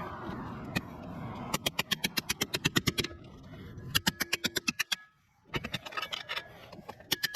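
Ratchet wrench clicking rapidly in several short runs, about ten clicks a second, as a nut is turned on the turbo-to-exhaust-manifold studs.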